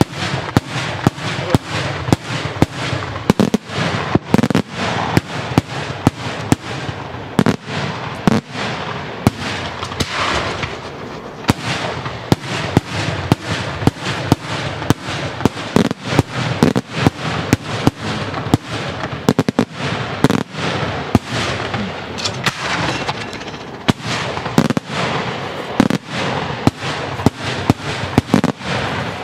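Daytime fireworks display: aerial shells bursting in the sky in quick succession, about two loud bangs a second, with a steady crackle between them.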